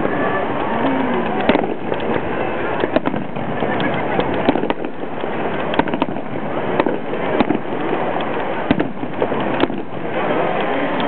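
Aerial firework shells bursting in a fireworks display: about a dozen bangs at irregular intervals over a continuous noisy background.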